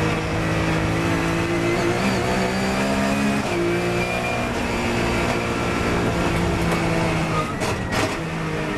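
Porsche 997 GT3 Cup race car's flat-six engine heard from inside the cockpit, accelerating hard with gear changes about two and three and a half seconds in. Near the end it comes off the throttle for braking, with a few sharp cracks.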